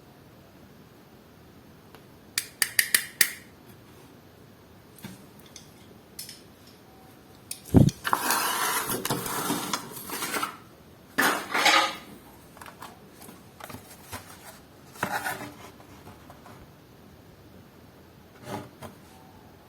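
Handling noises from unboxing diecast toy cars: a quick run of sharp clicks, a low thump, then several bursts of rustling and scraping packaging.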